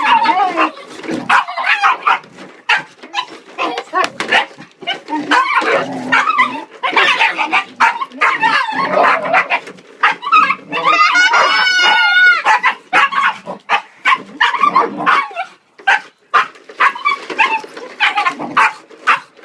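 A puppy barking, yipping and growling at a plastic toy lawn mower, with frequent sharp clicks and knocks from the toy as he bites and pushes it. Near the middle there is one long, wavering, high-pitched whine.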